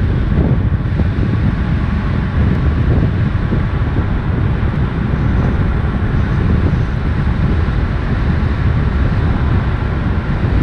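Steady wind buffeting a camera microphone moving at road speed, a loud rumbling roar with no breaks.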